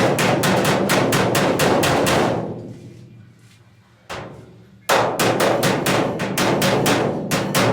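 Body hammer striking a 1970 Dodge Challenger's steel roof panel against a dolly in a fast, even run of sharp metallic knocks. This is hammer-on-dolly work knocking down high spots in an oil-canned roof. The strikes stop a little over two seconds in, one lone strike comes about a second later, and fast hammering resumes about five seconds in.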